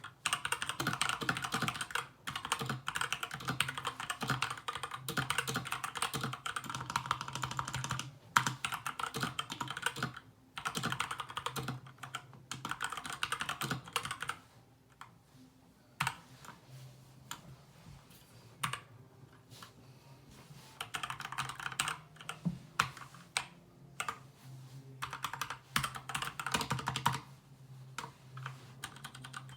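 Fast typing on an SK61 mechanical keyboard with lubed Gateron Brown tactile switches and pudding keycaps: dense runs of keystrokes broken by stretches of slower, sparser presses.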